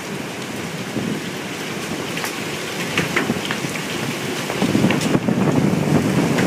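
Heavy storm rain and hail beating down, with scattered sharp ticks of hailstones striking. The rush of wind and rain grows louder about four and a half seconds in.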